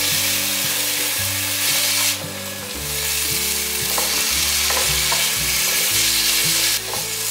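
King oyster mushroom strips, green pepper and baby corn sizzling in hot oil in a nonstick wok while being stir-fried and tossed with a spatula.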